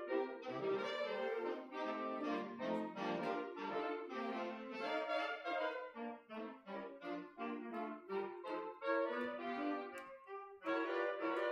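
Saxophone quartet playing, several saxophone lines moving together in harmony in a steady run of notes, with a brief break just past ten seconds in.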